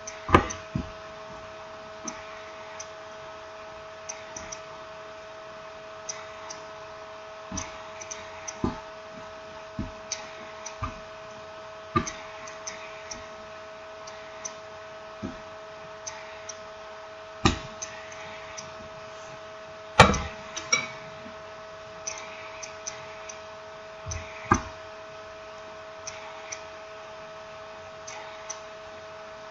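Scattered small clicks and knocks of a smartphone and small tools being handled during reassembly, a few of them sharper taps, over a steady electrical hum.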